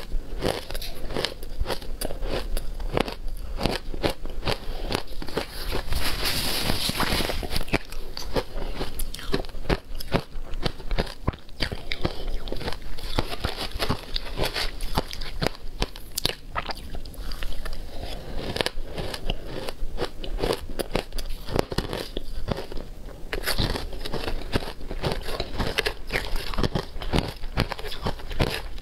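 Close-miked chewing of shaved ice coated in matcha and milk powder: a steady run of crisp, rapid crunches as the ice is bitten and ground, loudest about six seconds in.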